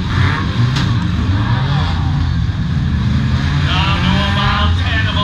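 Several eight-cylinder demolition-derby car engines running and revving together in a thick, loud rumble, with one brief sharp knock a little under a second in. Crowd voices rise near the end.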